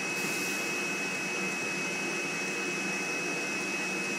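Jinbao flat-bed screen printing machine running, a steady whirring noise with a constant high whine. A short hiss right at the start.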